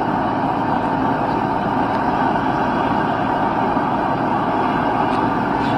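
Forge burner running with a steady, even rushing noise.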